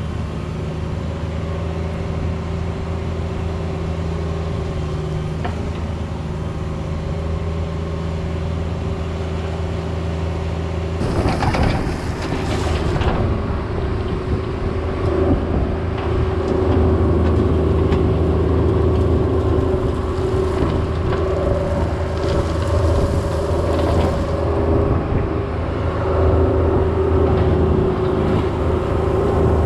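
Cat 304 mini excavator's diesel engine running steadily under working load, with a brief burst of noise about a third of the way in, after which it runs a little louder.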